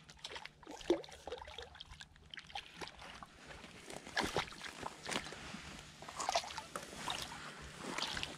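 A small crappie splashing in shallow water as it is reeled in to the bank, a string of light, irregular splashes that come more often in the second half.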